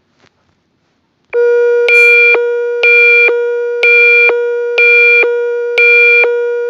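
Electronic emergency alert tone: a steady low tone with a higher tone pulsing on about once a second. It starts about a second and a half in and stays loud.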